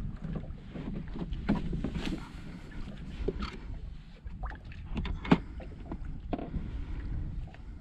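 Water slapping against the hull of a small anchored boat, with wind on the microphone and a few small knocks on the boat, the sharpest about five seconds in.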